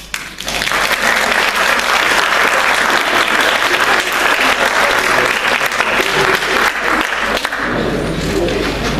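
Audience applauding, the clapping starting about half a second in and easing slightly near the end.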